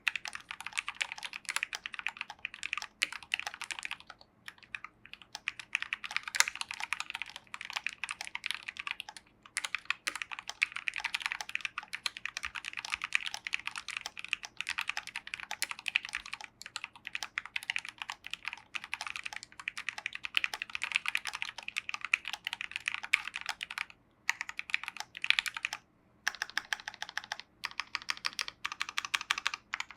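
Fast, continuous typing on a Maja split mechanical keyboard with lubed Gateron Ink Black V2 linear switches, a brass plate and PBT keycaps: a dense run of key clicks, with short pauses now and then, about four seconds in, near nine seconds and a few times near the end.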